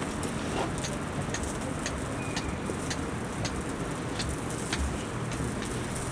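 A small dog eating from a plastic tub: scattered light clicks of its mouth against the bowl over a steady background hiss.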